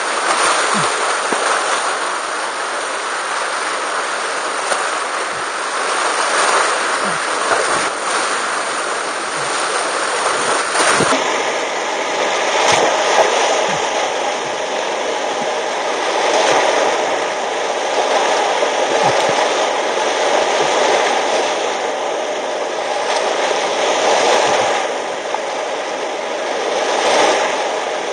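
Rushing whitewater of a steep, continuous Class IV–V creek, heard from a kayak in the rapids through a helmet camera and sped up to double speed, with short knocks now and then.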